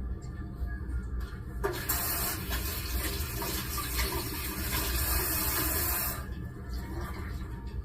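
Kitchen sink tap turned on, running water for about four and a half seconds, then shut off.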